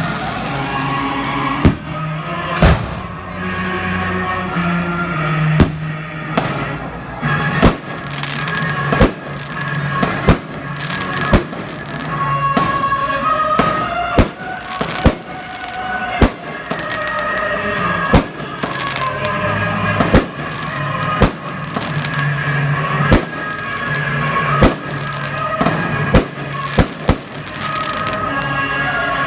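Fireworks going off in an irregular run of sharp bangs, roughly one a second, over music.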